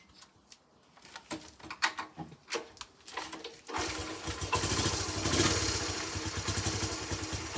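Honda CT110 postie bike's small single-cylinder four-stroke engine kick-started after a few knocks, catching about four seconds in. It rises briefly, then settles into an even idle, running smoothly on a freshly replaced cam chain.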